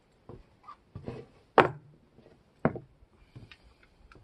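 Work boots stepping on wooden deck boards: a series of separate knocks, the loudest about a second and a half in.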